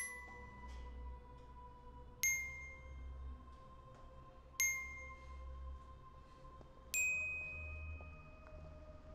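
Sparse film-score music: four bell-like chime notes, each struck and left ringing, evenly spaced about every two and a half seconds, the last a little higher. A faint held tone runs underneath.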